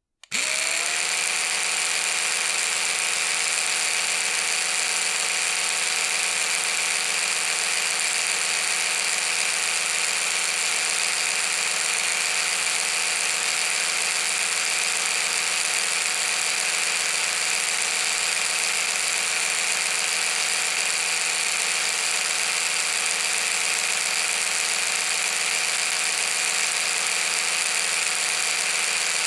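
Electric toothbrush motor switching on, its pitch rising briefly as it comes up to speed, then running with a steady high buzz.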